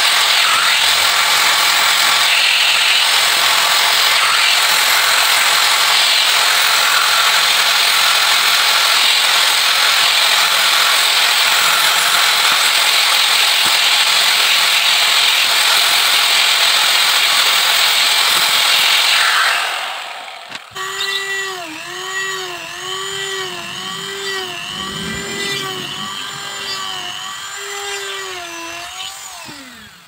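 Electric angle grinder with a sanding disc, running loud and steady as it sands a bamboo frame. About twenty seconds in, the noise drops away abruptly to a quieter motor whine whose pitch dips and recovers about once a second, then falls as it winds down near the end.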